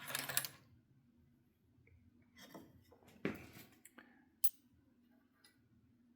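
Metal parts of a rifle bolt's firing pin assembly clicking and scraping as they are handled and fitted back together, a few short knocks with the loudest about three seconds in.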